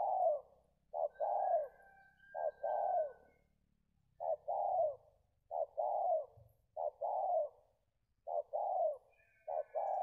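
Spotted dove (tekukur) cooing over and over, about eight times, roughly every second and a half. Each call is a short note followed by a longer falling coo.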